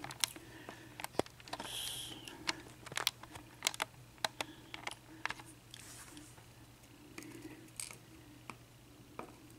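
Irregular light clicks and taps of small metal lock parts (pins and spools) being handled and set down on a hard surface.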